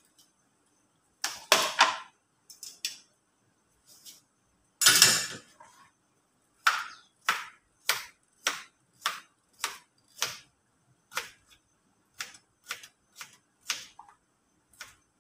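Kitchen knife chopping a carrot on a plate: a steady run of sharp chops, a little under two a second, from about halfway through. Two louder clattering knocks come earlier.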